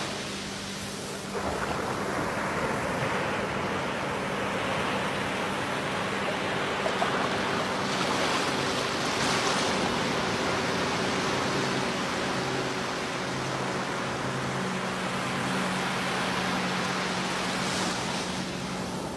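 Ocean surf breaking and washing up at close range: a steady rush of water, with a faint steady low hum underneath.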